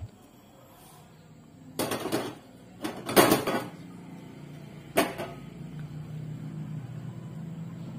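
Metal pan supports being set onto a Rinnai two-burner gas stove's stainless-steel top. Two short clattering knocks come about two and three seconds in, the second the loudest, then one sharp metal click about five seconds in.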